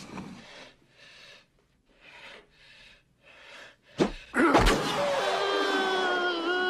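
Quiet, tense breathing, then about four seconds in a knife blade chops down onto the table with a sharp thud, and a man lets out a long scream of pain that slowly falls in pitch: his finger has just been cut off.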